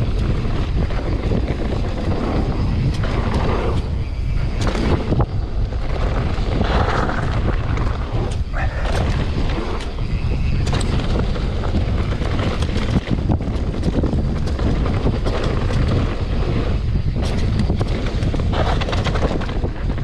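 Wind buffeting the microphone of a camera on a mountain bike riding a downhill trail, a steady rumble with the rush of riding swelling and fading, and scattered knocks and rattles from the bike going over the rough ground.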